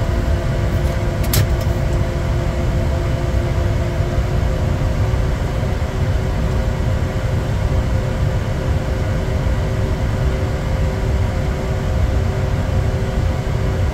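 Steady in-flight noise inside a Bombardier Challenger 350 business jet: a low rumble of airflow with the steady hum of its Honeywell HTF7350 turbofans. There is a brief click just over a second in.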